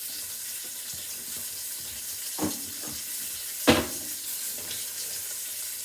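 Hot oil sizzling steadily in a cooking pot, with a light knock about two and a half seconds in and a sharper, louder knock a second or so later.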